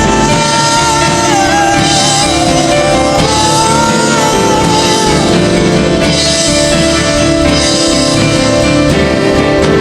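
Worship band music with drums and guitar, a long wavering high note held over it that fades out about five seconds in.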